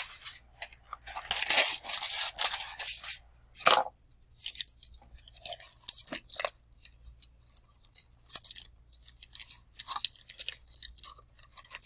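Aluminium foil crinkling and crackling as a sheet is handled and pressed down by hand onto a small cardboard-and-cup model. Dense crinkling starts about a second in, with a sharp crack near four seconds, then scattered crackles.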